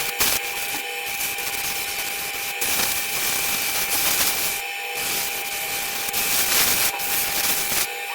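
Wood being worked on a running lathe: a rough, steady hiss of tool or abrasive against the spinning wood over a steady machine whine, with brief breaks about a second in, near the middle and near the end.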